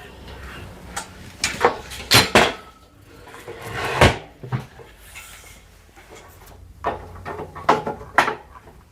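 Furniture pieces being handled and shifted: a string of irregular knocks and bumps with some scraping, the loudest about four seconds in.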